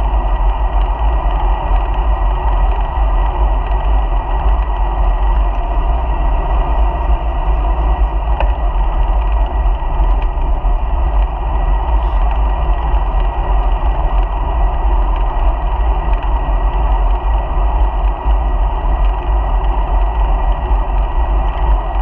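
Steady, muffled wind buffeting and rolling road noise picked up by a bicycle-mounted GoPro while riding.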